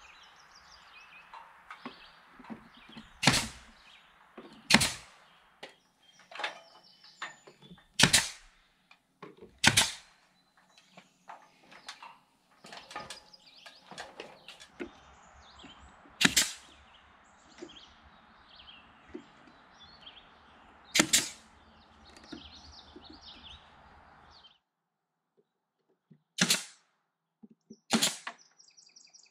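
Nails being driven into soffit boards: about eight single sharp cracks a few seconds apart, irregularly spaced, with quieter knocks between them.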